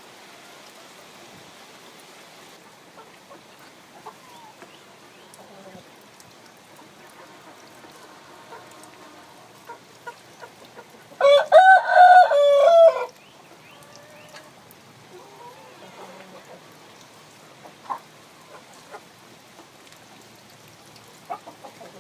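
A rooster crows once, a loud call of about two seconds near the middle, over faint background clucking and small ticks.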